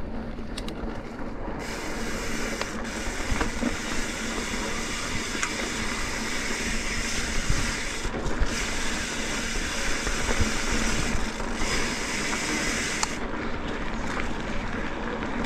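A mountain bike riding along a dirt singletrack trail: a steady rush of tyre and trail noise, with small clicks and rattles from the bike as it rolls over bumps.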